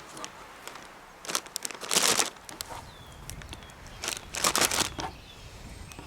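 Handling noise: several short crinkling, rustling bursts, the loudest about two seconds in and again past the four-second mark.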